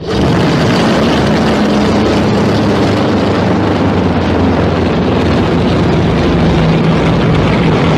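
Creature-vocal sound effect: a loud, sustained, low monster roar that holds a steady pitch under a rough, gritty edge, starting abruptly.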